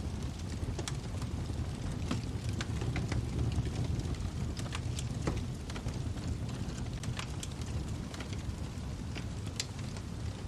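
Wood fire burning in a fireplace, crackling: a steady low rumble of flames with irregular sharp pops and snaps, a few every second.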